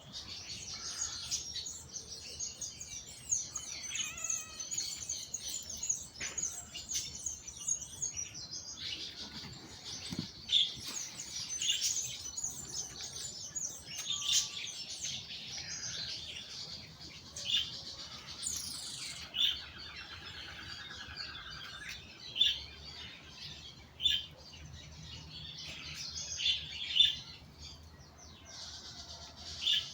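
Several songbirds chirping and singing together in a busy chorus of high notes, with a louder single call standing out every couple of seconds.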